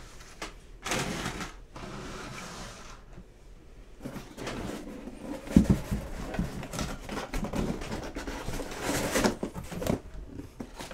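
Handling noise as a cardboard fast-food box and food are moved about on a table: irregular rustling and knocking, busiest in the second half, with one sharp knock about halfway through.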